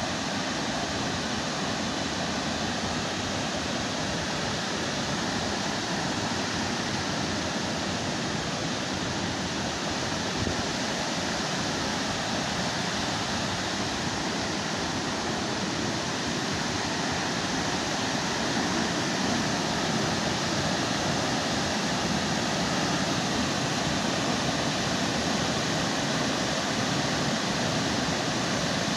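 Burney Falls waterfall pouring steadily: a continuous, even rush of falling water that grows a little louder in the second half.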